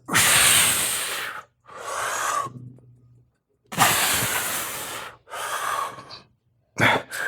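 A man breathing hard in heavy gasps, about five long breaths one after another, winded from a hard set of dips.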